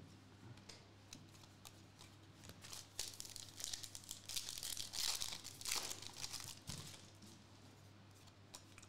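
Foil wrapper of a trading card pack crinkling and tearing as it is ripped open, a run of crackly rustles and small snaps in the middle few seconds, over a faint low hum.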